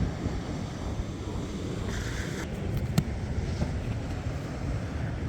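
Wind buffeting the microphone over the wash of surf on a beach, with a single sharp click about three seconds in.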